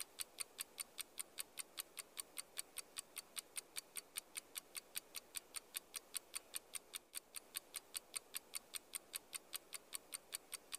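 Clock ticking sound effect: fast, even ticks, about four to five a second, used to mark time passing.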